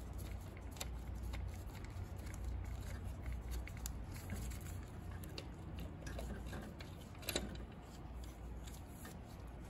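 Small irregular metallic clicks and scrapes of a socket and extension turning out a 10 mm belt-tensioner bolt, with one sharper click about seven seconds in, over a faint steady low hum.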